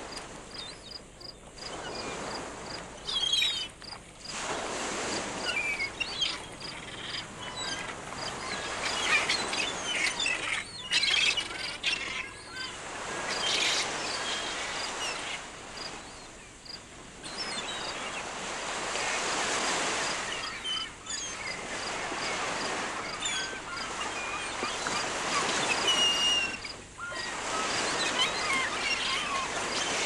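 Birds chirping and twittering over a steady wash of water like surf, which swells and drops away several times.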